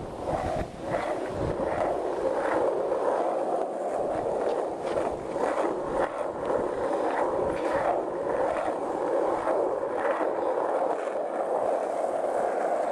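Skate wheels rolling steadily over rough pavement, a continuous rumble with repeated clicks as they pass over bumps.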